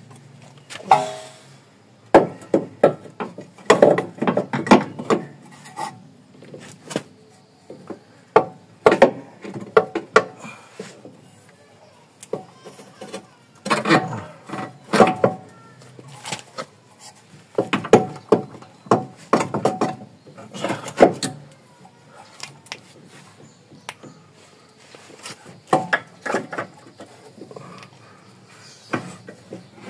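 Steel lower control arm and its bolt clanking and knocking against the car's chassis as the arm is worked into its mounting, in clusters of sharp knocks every second or two.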